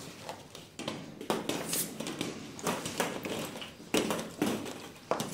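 Hollow plastic ball pit balls knocking and clattering against each other and the floor, in irregular light taps with short rustling stretches between them.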